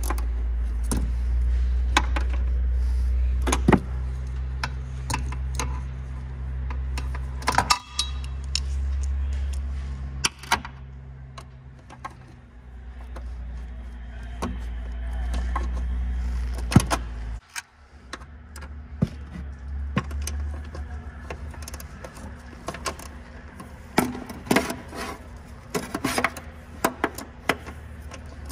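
Ratchet on a long extension clicking in short runs, with light metal clinks, as the 14 mm upper rear strut-mount bolts are loosened. A low steady hum sits underneath and cuts off suddenly a little past halfway.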